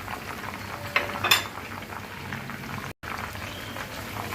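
Whole chicken deep-frying in hot oil in a karahi, a steady crackling sizzle, with two sharp clinks of the turning utensil against the pan about a second in and a momentary dropout near the end.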